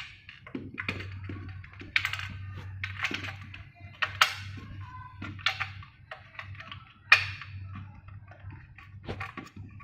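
Hard plastic parts of a Dyson V10 cordless vacuum and its wall charging dock being handled and fitted together: an uneven run of clicks, taps and rattles, with sharper knocks about two, four and seven seconds in.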